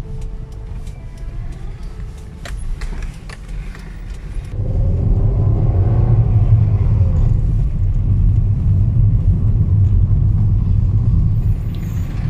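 Car cabin noise: the low rumble of the engine and tyres on the road while driving. It gets markedly louder about four and a half seconds in as the car picks up speed.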